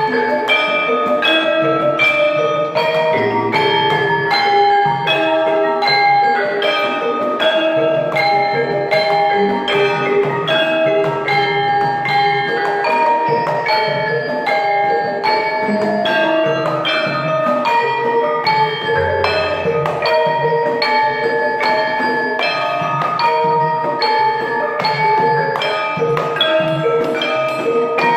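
Javanese gamelan ensemble playing: bronze metallophones and kettle gongs struck in a steady, even pulse of ringing metallic notes, with kendang hand drums keeping time.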